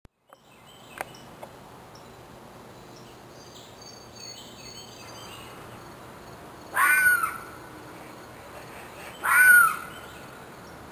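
A bird calling loudly twice, two short calls about two and a half seconds apart, over a faint steady background hiss; a sharp click about a second in.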